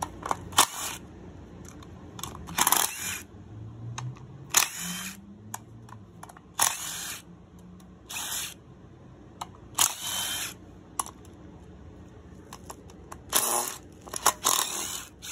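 Cordless driver spinning screws out of a jetski's aluminium CDI box cover in short bursts, about eight of them, each lasting under a second, with small clicks in between.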